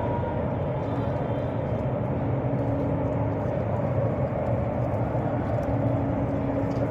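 Steady low rumble of a running engine, with a faint steady hum that drops out for a couple of seconds in the middle.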